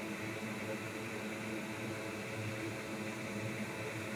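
Steady, even whir of a fan or blower with a faint hum running under it.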